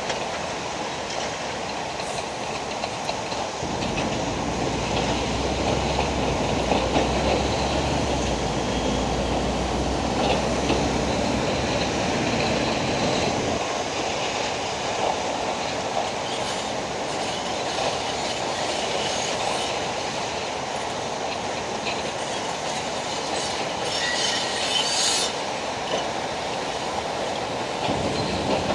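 Heavy demolition machinery at work: a continuous clanking, grinding din of steel on concrete and metal, with a deeper engine rumble for about ten seconds early on and scattered knocks throughout.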